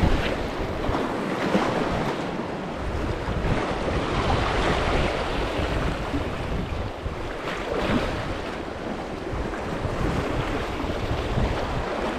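Sea surf washing in and out in swells, with wind rumbling on the microphone.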